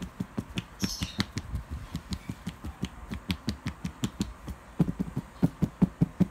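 Fingers and hands patting and tapping rapidly right at the microphone in a mock massage: soft thumps with a click on top, about five a second, getting louder near the end and stopping abruptly. A brief scratchy rustle about a second in.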